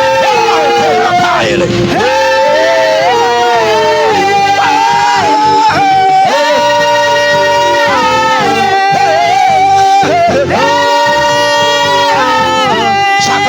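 Worship music: a voice holding long notes that slide from one pitch to the next, over a sustained accompaniment.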